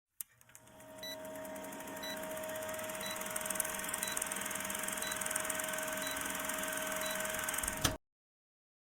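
A steady hum with a short high beep repeating about once a second over a rising hiss, cutting off suddenly near the end.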